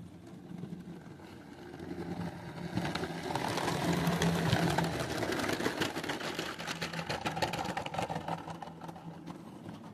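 Miniature garden-railway train running past with a fast run of clicks and a steady low hum. It grows louder over a couple of seconds, is loudest about four to five seconds in, then fades away.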